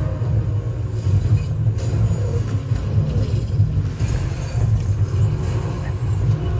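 DUB 10-inch subwoofer playing deep bass loudly with no enclosure, its cone at large excursion; the bass throbs unevenly.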